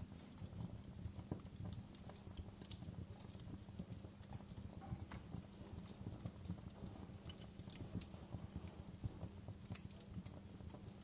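Wood fire crackling in a fireplace: a dense, irregular low crackle with scattered sharp pops.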